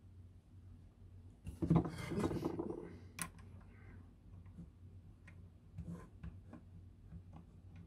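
Telescope tube being picked up and handled by hand: a burst of rubbing and scraping about a second and a half in, a sharp click just after, then scattered faint taps.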